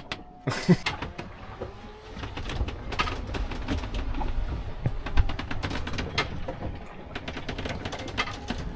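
Inside the cabin of a 1978 Nicholson 35 sailboat under way at sea: a steady low rumble of water along the hull, with scattered creaks and knocks from the boat and its fittings as it rolls.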